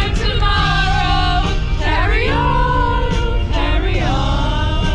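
Music with singing: a sung melody of long, wavering held notes over a steady low accompaniment.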